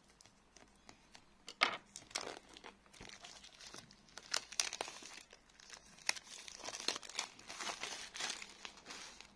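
Clear plastic shrink-wrap being cut, torn and peeled off a cardboard phone box, with crinkling and crackling. The crinkling is scattered at first, grows dense about halfway through and stops just before the end.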